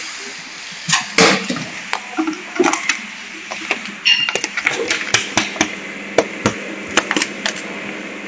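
Plastic food bag crinkling and crackling as it is handled at a vacuum packing machine's chamber, a quick irregular series of sharp crackles and taps, over a low steady hum.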